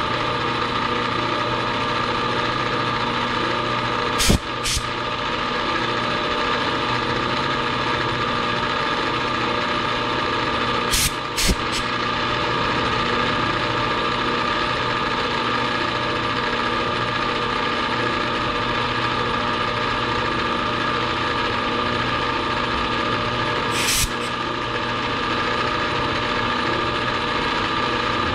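Vertical milling machine running steadily, its spindle turning a carbide tool that cuts a V groove along an aluminum bar. A few sharp clicks or knocks break in: two close together about four seconds in, three in quick succession around the middle, and one more near the end.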